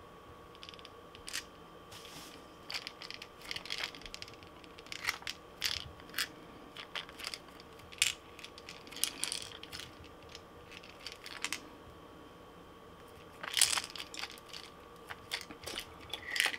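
Hands handling a hard plastic 3D-printed lure body: scattered light clicks, taps and rubbing of plastic against fingers and the work mat, with a louder cluster about three seconds before the end. A faint steady hum runs underneath.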